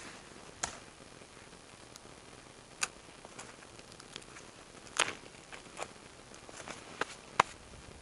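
Branches and twigs cracking and snapping as a pile of cut branches is handled, with about six sharp snaps at irregular intervals, the loudest near the end.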